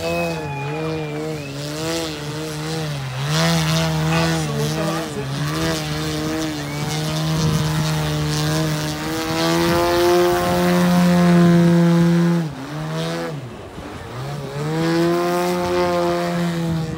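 DA-200 twin-cylinder two-stroke petrol engine and propeller of a large RC Pitts Challenger II aerobatic biplane hovering, with the throttle worked up and down all the time. It is held high for a couple of seconds about ten seconds in, cut back sharply twice, then opened up again near the end.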